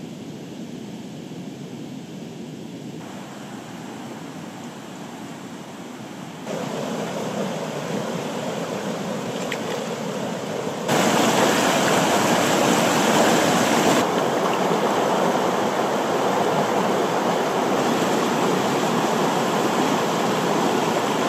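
Rain-swollen Altaconey River rushing over rocks and rapids, a steady sound of fast water that gets louder in steps about 3, 6.5 and 11 seconds in.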